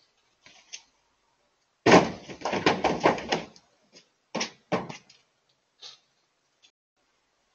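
A white-tailed deer crashing into the side of a parked Chevrolet Silverado pickup: a loud cluster of thuds and knocks about two seconds in, then two more sharp knocks a couple of seconds later.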